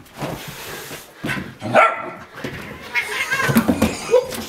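Husky puppy barking and yipping at a cat, which hisses back at it during a play-fight.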